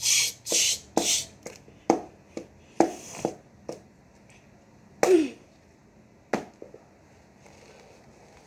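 Repeated blows to a doll lying on the floor, struck by a hand holding a small object. The first few hits come fast, about two a second, then single hits follow at uneven gaps. One hit about five seconds in carries a brief falling squeak.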